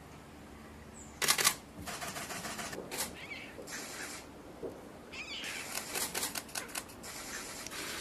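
Common kingfisher beating a fish against its wooden perch: a series of sharp knocks and clatters, some in quick runs. A loud harsh burst comes about a second in.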